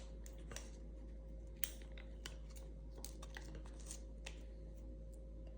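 Light, irregular clicks and crinkles of a thin aluminium foil lid being handled and pressed onto a refilled Vertuo coffee pod.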